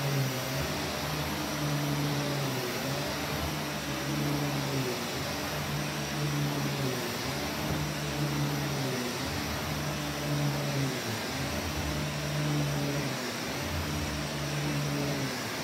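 Vax Commercial VCU-03C upright vacuum cleaner running as it is pushed back and forth over carpet. Its hum wavers in pitch every second or two.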